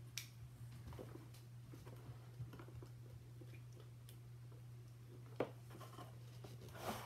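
Quiet room with a steady low hum, broken by a few faint clicks and taps from handling cardboard kit pieces and a hot glue gun; the sharpest click comes about five seconds in.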